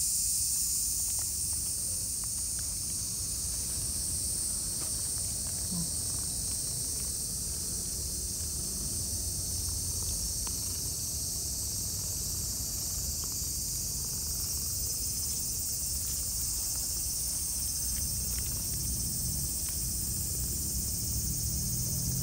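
Steady high-pitched chorus of insects, with a low rumble underneath and a few faint clicks; a low hum comes in near the end.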